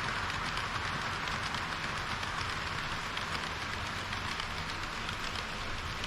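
HO-scale model train running on the layout's track: a steady whirring hiss of metal wheels on the rails and the drive motor, with fine rapid ticking.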